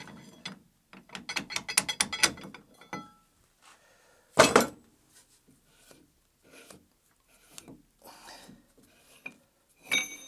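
Metal-on-wood workshop handling noise as a lathe chuck is worked loose and off onto a protective board on the lathe bed: a quick run of metallic clicks, one loud knock about four seconds in, then scattered light knocks and scrapes.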